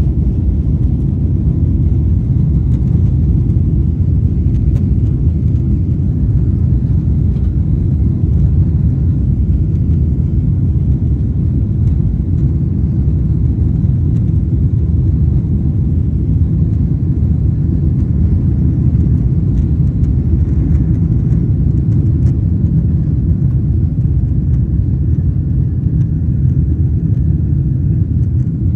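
Boeing 777 takeoff heard from inside the passenger cabin: a steady, loud low rumble of the engines at takeoff power and the runway noise as the jet rolls down the runway and lifts off.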